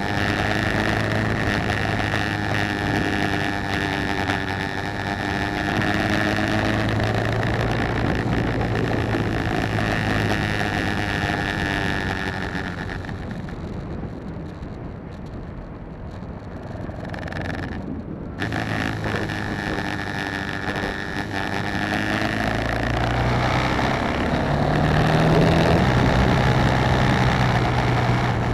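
BMW G650GS single-cylinder motorcycle engine running under way, with wind noise over the microphone. The engine goes quieter for a few seconds past the middle, then rises in revs again near the end.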